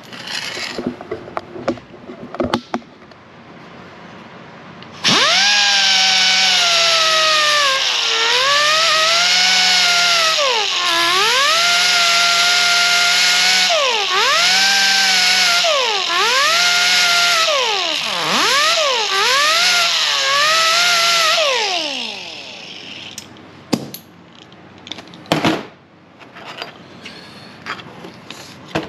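Right-angle air sander with a sanding disc grinding the head off a steel rivet on a vent-window frame: a loud high whine whose pitch dips again and again as the disc is pressed into the rivet, then winds down after about seventeen seconds. A few sharp knocks follow near the end.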